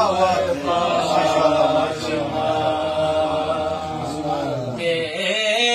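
A man's voice chanting an Urdu manqabat (devotional poem) without instruments, holding one long, slightly wavering note that falls in pitch about four and a half seconds in, before a new phrase starts near the end.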